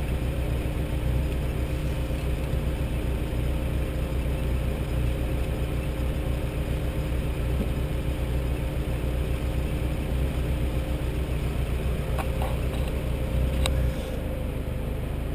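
A four-wheel drive's engine idling with a steady low rumble, heard through a camera mounted on the vehicle, with a couple of faint clicks near the end.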